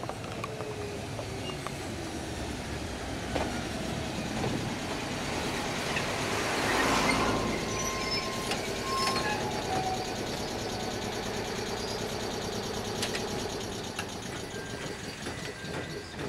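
Ichibata Electric Railway 5000 series electric train pulling in and slowing to a stop. The rumble of wheels on rail is loudest about seven seconds in as the cars pass close, with short brake squeals and clicks as it slows.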